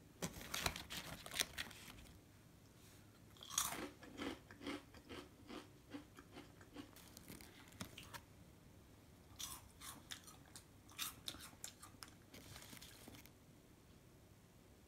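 Hand rummaging in crinkly foil snack bags of puffed rice snacks, crackling and crunching in bursts. In the middle there is a run of regular crunches, about two a second.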